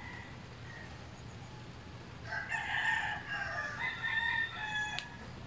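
A rooster crowing once, a pitched call lasting about two and a half seconds that starts about two seconds in. A single sharp click follows just after it.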